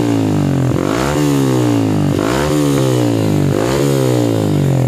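Yamaha MX King 150 single-cylinder four-stroke engine revved through an aftermarket muffler with a reworked baffle, in about three quick throttle blips; the pitch climbs sharply and drops back each time.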